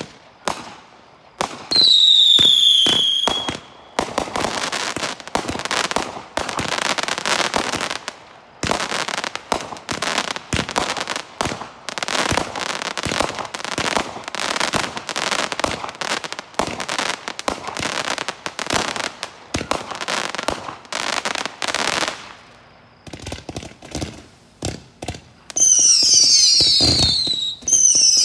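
Consumer firework cakes fused together and firing in sequence. Sharp bangs, then a whistle falling in pitch about two seconds in, then a long stretch of rapid crackling and popping reports. Near the end, several more falling whistles.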